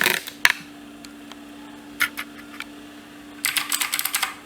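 Clicky Gateron Blue switches on an L. Leopard tenkeyless mechanical keyboard being typed on: a few keystrokes, a lull of about three seconds with only a few lone clicks over a faint low hum, then fast continuous typing from about three and a half seconds in.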